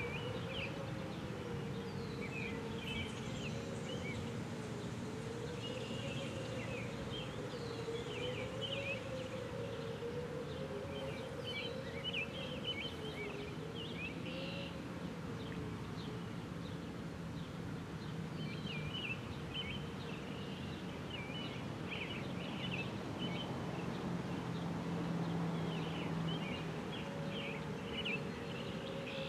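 Distant outdoor warning sirens, one tone wavering up and down in pitch every couple of seconds. It fades about halfway through, and a steadier tone comes in near the end. Birds chirp over it.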